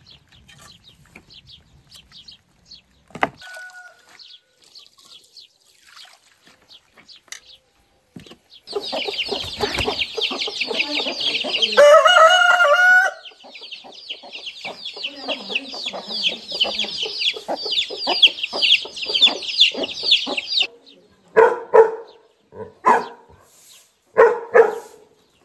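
Chicken coop: a crowd of small chicks peeping fast and high, with a rooster giving one short, loud crow about twelve seconds in. Before that, only faint rustles and clicks; near the end, a few short, sharp calls.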